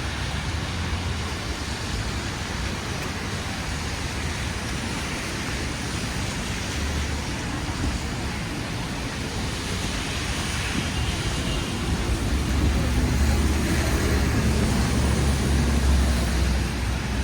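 City street traffic: a steady wash of passing cars with a low engine rumble that swells louder for the last few seconds.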